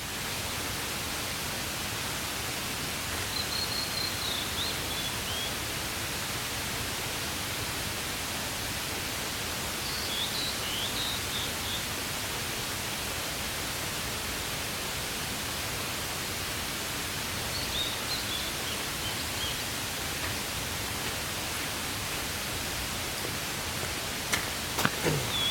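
A steady even hiss, with a small bird calling three times in short, high chirping phrases. A few clicks near the end.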